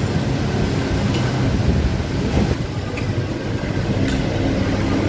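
Steady low rumble, with a few light clinks of spoons and forks against plates about one, three and four seconds in.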